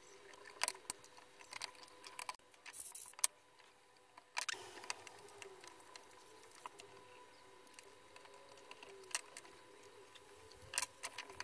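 Scattered small clicks, taps and rattles of hard plastic as hands handle a laser printer's fuser unit and pick burnt, broken pieces of the old fuser roller out of it, over a faint steady hum.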